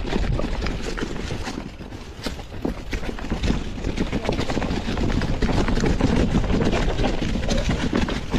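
Mountain bike rolling downhill on a dirt trail covered in dry leaves: tyres crunching over leaves and dirt and the bike rattling over bumps in a dense run of irregular clicks, with wind rumbling on the microphone.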